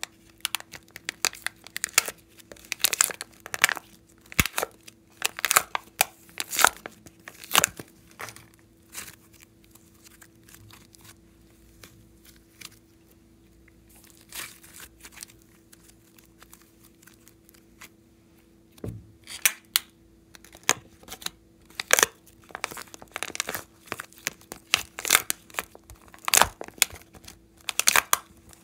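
Soft clay and slime squished, pressed and pulled out of a plastic palette by hand, giving sticky crackles and pops. The crackling is busy at first, thins out to a quieter stretch in the middle, then picks up again.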